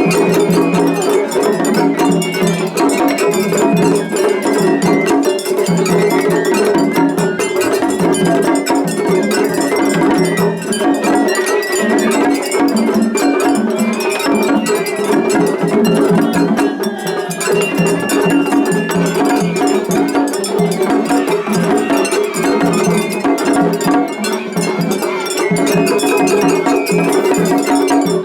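Japanese festival hayashi played on floats: flute, taiko drums and clanging hand gongs in continuous loud play. Rival float bands play against each other in a seriai face-off.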